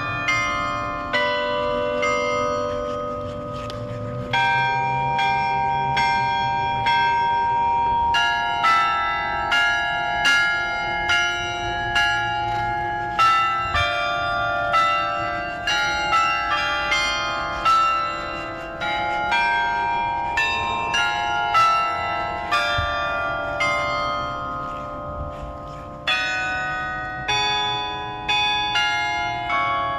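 Carillon bells playing a slow anthem melody, struck note by note about once or twice a second, each bell ringing on under the next.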